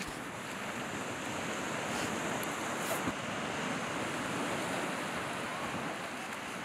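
Small waves washing onto a sandy beach: a steady rushing noise.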